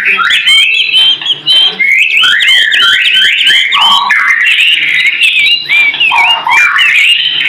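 White-rumped shama (murai batu) singing continuously: a fast, loud run of whistled slurs and chirps, several notes a second, mixed with harsher, lower chattering phrases.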